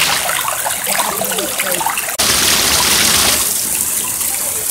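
Water rushing and splashing, a loud, steady noisy spray that changes abruptly about two seconds in.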